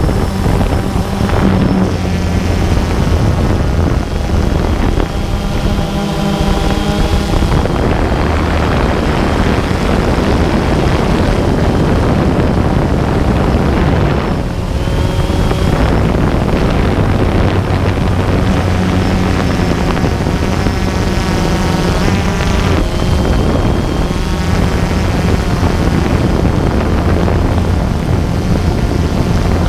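DJI Phantom 2 quadcopter's electric motors and propellers whirring steadily, heard close up from the camera mounted on the drone, with wind rushing over the microphone. Higher motor tones waver up and down at times as the drone manoeuvres.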